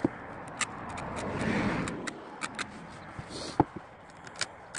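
Scattered light clicks and knocks of a metal workpiece and tools being handled, with one sharper ringing metal clink a little past halfway, over a background noise that swells and fades like a passing vehicle.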